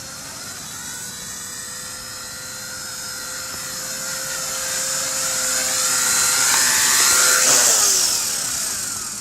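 Blade mCPx micro RC helicopter in flight: a high whine from its electric motors and rotor, rising and falling in pitch as the throttle changes. It grows louder to a peak about seven seconds in, then drops in pitch and fades near the end.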